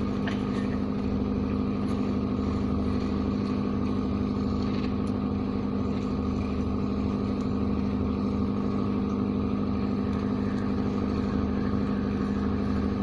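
An engine running steadily at a constant speed, giving a continuous low hum that never changes in pitch or level.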